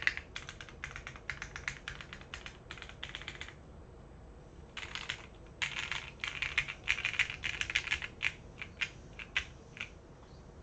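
Typing on a Nayeon TKL mechanical keyboard with stock Gateron Oil King linear switches on a polycarbonate half plate, foam-dampened, with a poppy keystroke sound. Fast runs of keystrokes, a pause of about a second in the middle, then more typing that thins to a few single keystrokes near the end.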